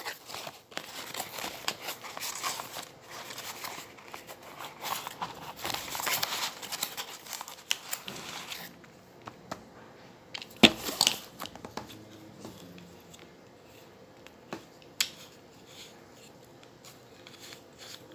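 Plastic packaging of a tripod crinkling and rustling as it is unwrapped, for about the first half. Then a few sharp clicks and knocks, and quieter handling after that.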